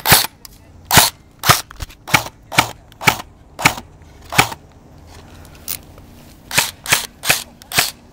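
Airsoft gun firing single shots in a steady string, about two sharp cracks a second, with a pause of about two seconds in the middle before the firing resumes.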